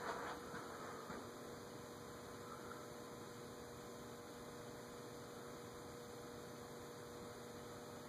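Faint, steady electrical mains hum, with a little rustling in the first second.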